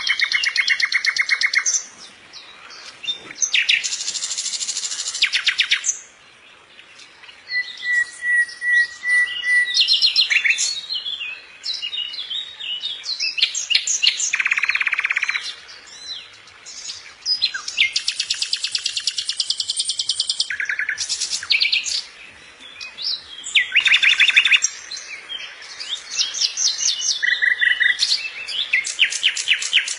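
A songbird singing a long, varied song of rapid trills and rattling phrases with short pauses between them, including a brief steady whistled note about eight seconds in.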